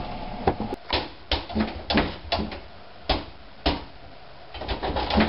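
Folding attic ladder and hatch door closing by themselves: a run of irregular knocks and clanks, with a quick cluster of knocks near the end.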